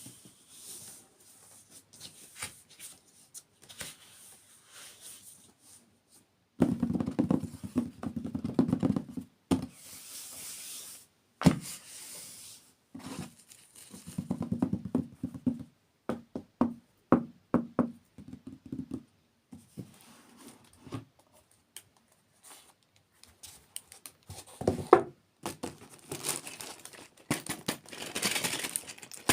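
Close-miked ASMR eating sounds: bites and chewing of sweets in bursts of crackly crunching, with a crinkling and tearing sound like packaging being handled. Quieter pauses fall between the bursts.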